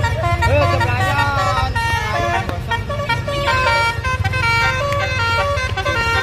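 Telolet bus horn, a multi-tone musical horn, playing a tune of stepped held notes over a low rumble.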